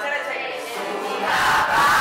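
A class of teenage students singing a song together in Italian, many voices in unison, growing louder about halfway through.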